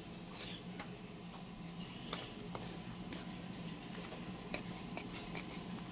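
Tint brush stirring and scraping hair bleach paste in a plastic mixing bowl, mixing bleach powder with developer: soft scraping with scattered light clicks and taps against the bowl. A faint low hum runs underneath.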